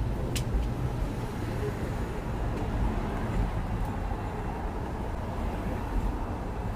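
Steady low rumble of a double-decker tram running along its rails, heard from on board on the upper deck, with street traffic around it. A single sharp click comes about half a second in.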